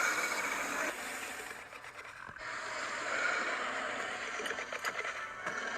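Tyrannosaurus rex sound effect: a breathy, rasping growl that dies away about a second in, followed by a second long breathy growl that swells and slowly fades.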